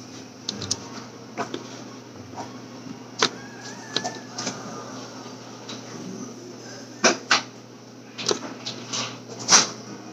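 Scattered plastic clicks and knocks from a Play-Doh pasta-maker toy being handled, its orange handle worked near the end, over a steady low hum. Two sharp knocks come about seven seconds in and another, the loudest, near the end.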